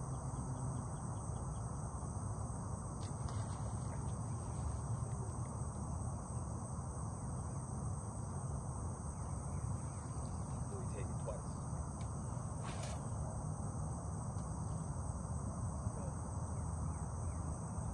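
Steady high-pitched chorus of insects over a constant low rumble, with a few faint ticks, the sharpest about 13 seconds in.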